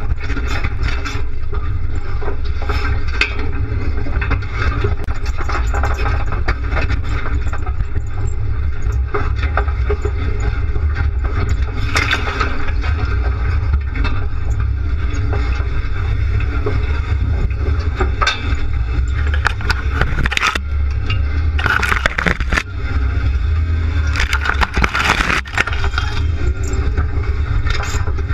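Off-road SUV crawling over dirt mounds: its engine runs as a steady low rumble under constant rattling and clatter from the body and the front-mounted camera pole. Several louder scrapes and knocks come through, the biggest around the middle and in the last few seconds.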